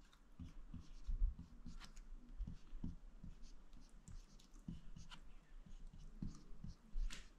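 Marker pen writing on a whiteboard: a faint run of short, separate pen strokes as an equation is written out.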